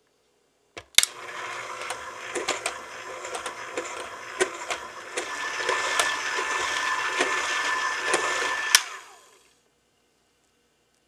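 Electric hand mixer beating cream cheese batter in a glass bowl, with sharp clicks as the beaters knock the glass. It starts with a click about a second in, runs for about eight seconds, growing louder with a steady whine around the middle, and switches off with a click.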